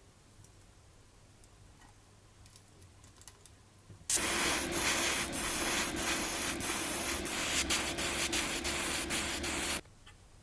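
A small power tool running in one steady stretch of about six seconds, a loud hiss over a constant hum, starting suddenly about four seconds in and cutting off abruptly.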